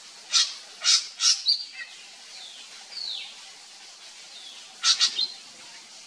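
Drongo calling: three loud, harsh notes in quick succession followed by a short whistle, a falling whistle about three seconds in, then another quick cluster of harsh notes with a brief whistle near the end.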